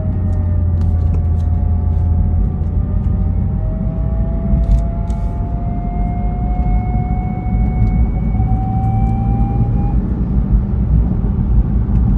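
BMW Z4 coupe running, with a steady low rumble and a thin whine that dips, then slowly rises in pitch and cuts off about ten seconds in: the weird noise the car is making.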